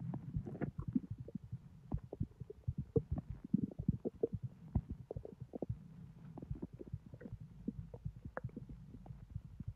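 Bowel sounds from a bloated, overfull belly, heard close up: many small irregular gurgles and pops as the intestines push food along, busy for the first several seconds and then thinning out, over a low steady hum.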